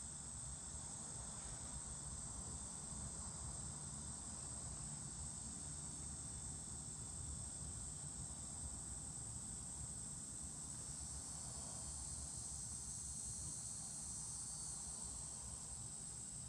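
Crickets chirping steadily in the background, with a low steady hum underneath.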